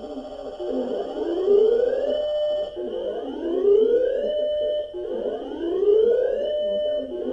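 A siren wailing in a repeating cycle: each wail rises in pitch for about a second and a half, holds briefly, then breaks off and starts again, about every two seconds and three times over. A faint steady high tone runs underneath.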